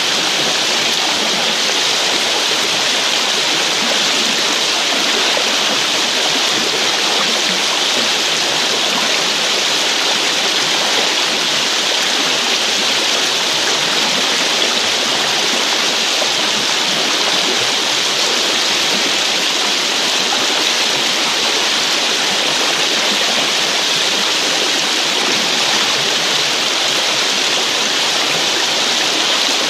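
Shallow, fast-flowing river water rushing steadily: an even, unbroken hiss.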